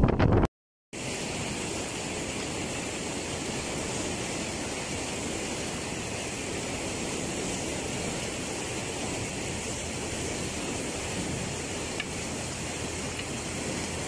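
Fast-flowing canal water rushing steadily through a headworks. It begins after a moment of wind noise on the microphone and a brief silence at a cut, just under a second in.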